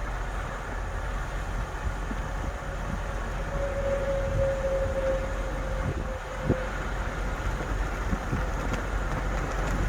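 Steady road and engine noise inside a moving truck's cab, with a few light knocks and a faint held tone that sinks slightly in pitch in the middle.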